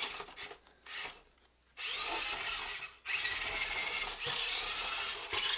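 Electric drive motors and gearboxes of a 1:20-scale RC skid steer whining under throttle. A few short blips come first, then longer runs from about two seconds in, the pitch rising and falling with speed.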